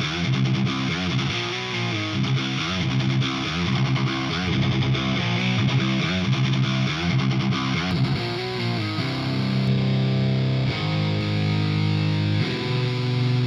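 Heavy metal demo track of distorted electric guitars run through the Audio Assault Bulldozer amp-simulator plugin. Fast riffing gives way to longer held chords about nine seconds in.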